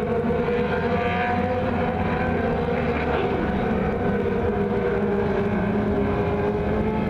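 A pack of mini sprint race cars running together on a dirt oval: a steady engine drone with a held high note that drifts only slightly, with no sharp revving.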